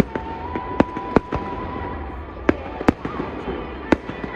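Fireworks bursting in a rapid, irregular string of sharp bangs, about six in four seconds. A thin steady whistle runs under the first half.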